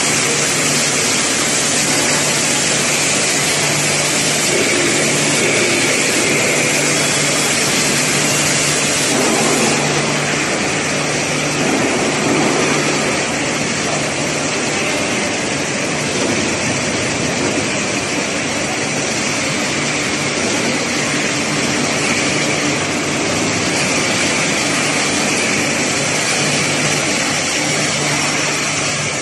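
Spiral welded pipe mill running: steady loud machinery noise made of a broad hiss over a constant low hum.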